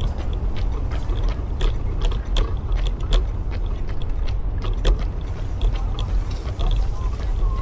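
Running footsteps on pavement: short, sharp, uneven footfalls, a few per second, over a steady low rumble.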